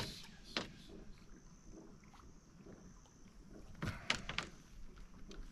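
A few sharp knocks and clicks of a landing net and a netted fish being handled on a bass boat's deck: one right at the start, another just after, and a quick cluster about four seconds in.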